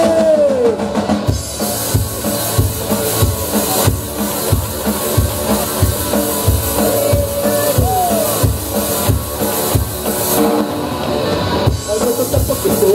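Live rock band playing an instrumental passage, with a drum kit keeping a steady beat and bass drum hits.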